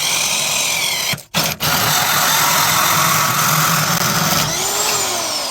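Power drill turning a hole saw on a long extension, cutting through a metal baffle plate inside a motorcycle muffler to open up the exhaust. The drill stops for a moment twice about a second in, then runs on, and winds down with a falling whine near the end.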